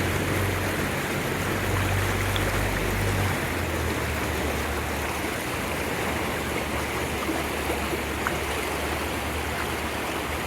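Flooded, fast-running river rushing steadily at close range, the water high enough to cover the riverside walkway. A low rumble sits under it for the first three seconds or so, then drops away.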